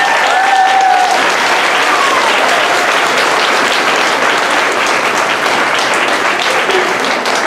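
Audience applauding steadily, with a voice calling out over the clapping during the first few seconds.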